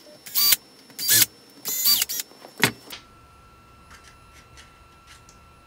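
Four short whirs of a small electric screwdriver in the first three seconds, backing out the screws of the reel's side plate, followed by faint ticks of handling.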